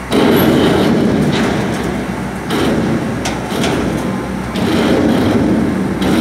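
Crane tipping a large steel silo over: a loud, rough rumble that starts suddenly and surges twice more, with knocks and creaks of the steel.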